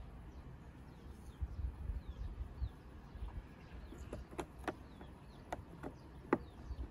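Sharp little plastic clicks, about six in the second half, as the lever knob is pressed onto the Samsung electric fan's oscillator switch shaft. Faint bird chirps behind.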